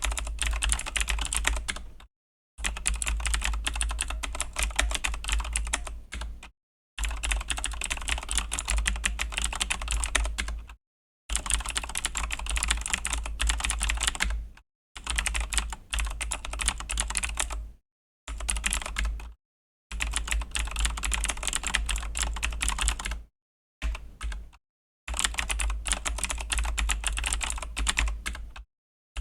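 Fast, continuous typing on a Razer BlackWidow V3 mechanical keyboard with Razer Green clicky switches, a dense clatter of key clicks. It comes in runs of a few seconds broken by brief, complete silences.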